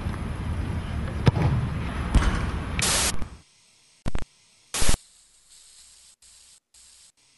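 Steady background noise with two sharp knocks. A loud burst of hiss follows, then the sound cuts off suddenly, leaving near silence broken by two short bursts of static.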